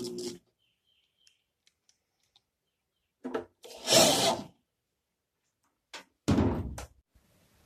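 A few short, loud thunks and clunks of bodywork on sheet metal, separated by stretches of near silence.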